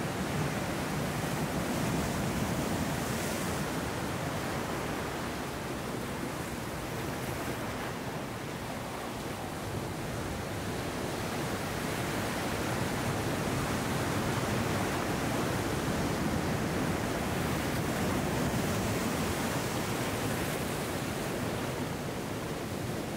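Ocean surf breaking against rocks and washing up a rocky sand cove: a steady rush of water that rises and eases slowly as the waves come in.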